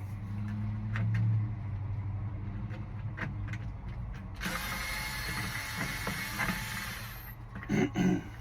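Hand tool backing a large screw out of a car door panel: scattered ratchet clicks, then about three seconds of grating metal-on-metal scraping in the middle as the screw turns out.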